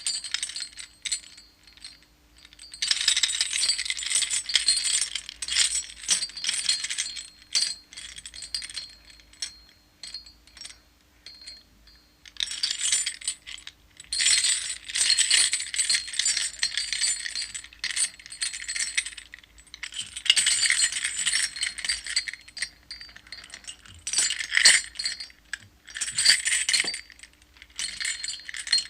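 Metal chains rattling and clinking, shaken in four bursts of a few seconds each, with scattered single clinks in the pauses between.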